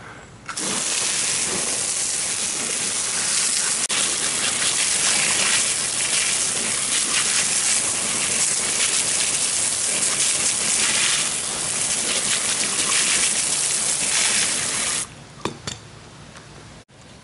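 Garden hose nozzle spraying a hard jet of water onto an alloy wheel and tyre, a steady hiss and splash. It starts about half a second in and cuts off abruptly near the end, followed by a few faint clicks.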